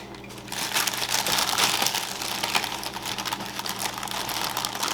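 A measuring cup scooping dry pancake mix, with a steady crackly rustling and small scraping clicks as the powder is dug out and shifted.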